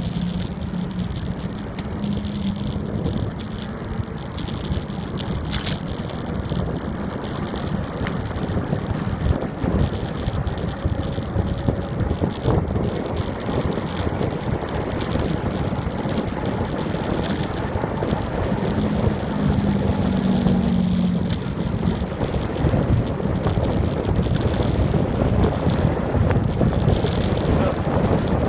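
Wind rushing over the microphone and bicycle tyres rolling on asphalt during a fast downhill ride. A low steady hum comes in briefly at the start and again about two-thirds of the way through.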